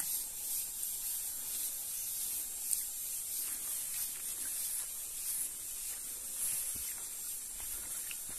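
Steady high-pitched hiss of outdoor riverside ambience, with a few faint clicks and taps.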